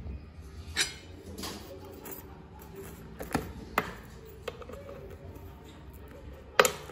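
Metal spoon clicking and scraping against the non-stick plates of a triangular sandwich-maker waffle iron as cooked waffles are prised out: a handful of sharp clicks, the loudest near the end.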